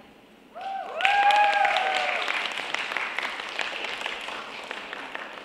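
Audience applauding, with a few shouts or whoops as the clapping starts about a second in. The applause then gradually dies away.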